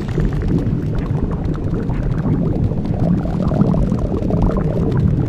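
Blueberry-inflation sound effect: a steady, low gurgling and sloshing of liquid, the cartoon sound of a body swelling up with juice.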